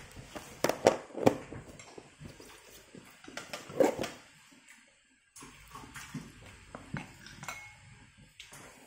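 Eating at the table: a spoon and chopsticks clicking against a ceramic noodle bowl at irregular moments, with mouth sounds of chewing noodles in between. The sound cuts out completely for about half a second around five seconds in.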